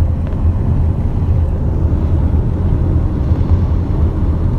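Steady, loud low rumble with no distinct sounds standing out.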